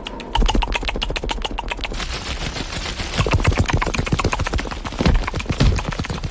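A fast, even rattle of sharp clicks, about a dozen a second, with a few heavier low thuds: a comic sound effect of furious chewing.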